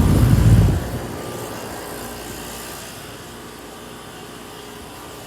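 Goodman central air conditioner outdoor units running with a steady hum and faint tones. A loud low rumble dominates the first second, then fades.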